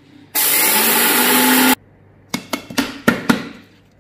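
Electric mixer grinder (mixie) running in one short burst of about a second and a half, grinding roasted fenugreek seeds to a fine powder, its hum rising slightly before it cuts off. Then several sharp knocks as the small steel grinding jar and its lid are handled.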